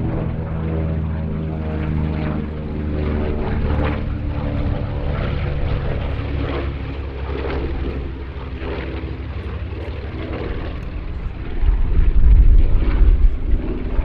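Piston-engined warbirds flying over, their propeller engines droning with a steady pitched note. The sound grows louder and deeper about twelve seconds in.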